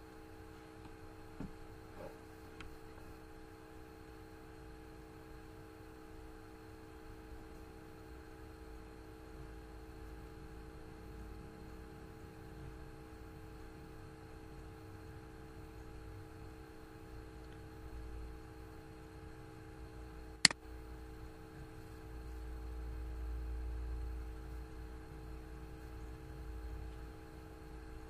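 Quiet room tone with a steady electrical hum, a few faint clicks in the first few seconds and one sharp click about two-thirds of the way through; a low rumble swells for a few seconds near the end.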